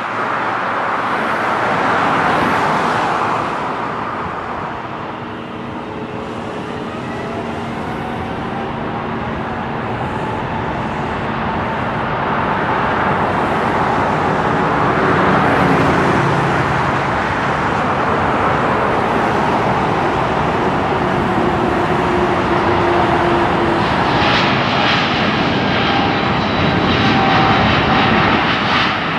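Boeing 777-300ER's twin GE90-115B turbofans at takeoff power during the takeoff roll: a loud, continuous engine noise with whining tones that glide in pitch. It dips briefly a few seconds in, then grows louder as the airliner accelerates down the runway.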